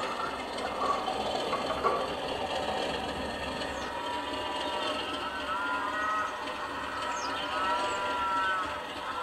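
Sound-fitted Accurascale Class 37 model locomotive sounding its horn in two blasts, the second longer, from about halfway through, over the running rumble of 00-gauge wagons on the track.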